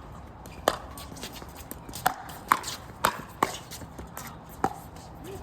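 Pickleball rally: sharp pops of paddles striking a plastic pickleball, about six hits and bounces at uneven intervals.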